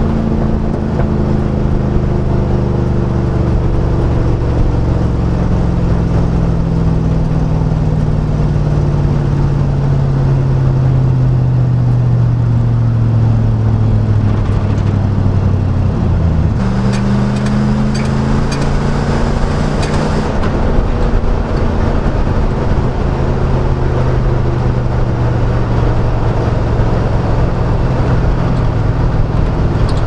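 1999 Chevrolet Silverado's 5.3L LM7 V8 running through a Cherry Bomb Glasspack straight-through muffler, a steady low exhaust drone while driving. The engine note slowly sinks in pitch, rises abruptly about 17 seconds in, then eases down again.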